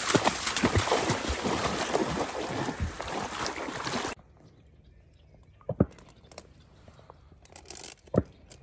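Splashing and sloshing of wading through shallow marsh water between tall reeds, with a dog splashing through the water ahead. It cuts off abruptly about four seconds in to a quiet background with two sharp knocks.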